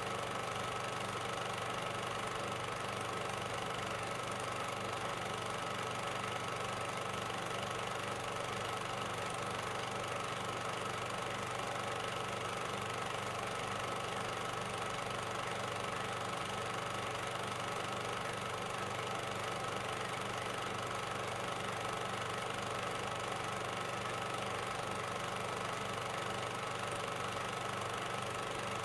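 A steady mechanical drone with a low hum and a few held tones, even in level and unchanging throughout.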